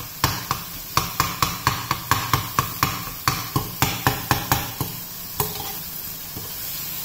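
A spatula knocking and scraping against a frying pan in quick strokes, about four a second, as paneer bhurji is stirred and broken up. The knocking stops about five seconds in, leaving the food sizzling in the pan.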